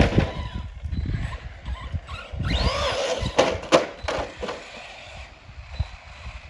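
Electric RC car motor whining up and down in pitch, about two and a half seconds in, with two sharp clicks soon after, over a heavy low rumble of wind on the microphone.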